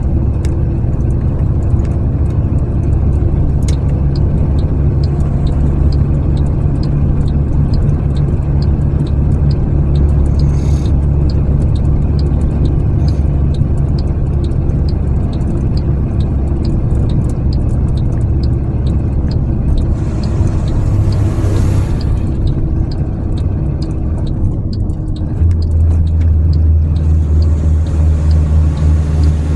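Road noise heard from a moving car: a steady low rumble of engine and tyres, with faint evenly spaced ticking. The rumble gets louder about 25 seconds in.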